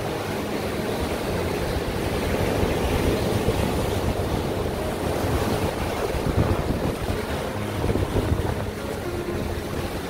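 Sea waves breaking and washing over shoreline rocks in a continuous, surging rush of surf. Strong wind is buffeting the microphone.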